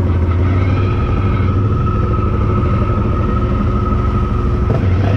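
Can-Am 1000 side-by-side engine running loud and steady, with a deep drone and a steady high whine over it.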